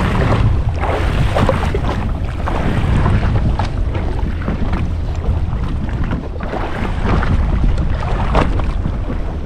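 Steady wind rushing over the microphone, with choppy ocean water splashing and slapping against the hull of a Sea-Doo fishing jet ski.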